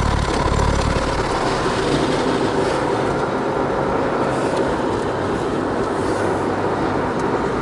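Steady road and wind noise inside the cabin of a car driving on a highway.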